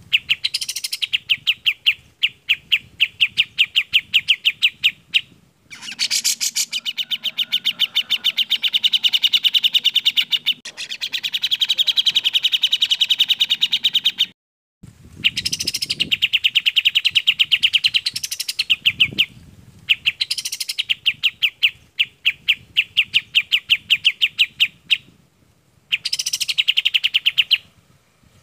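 Bulbuls singing, the kapas tembak and the cucak jenggot (grey-cheeked bulbul): rapid trains of high, clear repeated notes, each run lasting a few seconds with short breaks between, and one longer unbroken run in the middle.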